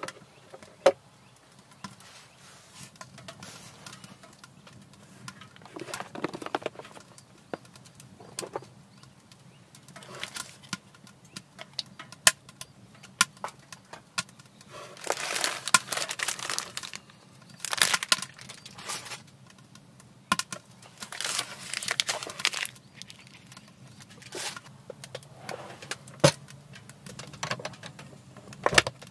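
Hands handling storage boxes: the hinged lid of a wooden food crate opens, items inside knock and click, with several bursts of rustling. Near the end a metal latch rattles and clicks on a box.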